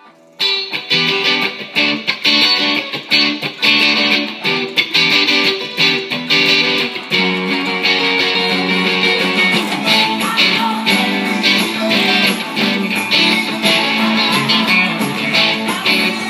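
Electric guitar played with a pick, a fast rock riff of quick repeated notes that starts about half a second in.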